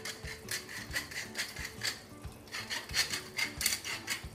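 Tall wooden pepper mill being twisted by hand, grinding peppercorns: a quick run of grating strokes, about five a second, with a short pause about halfway through.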